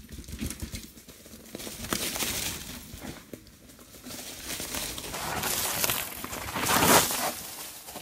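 Mountain bike tyres rolling and crunching over dry fallen leaves and dirt as riders pass close. The crackle swells about two seconds in, then again and loudest about seven seconds in.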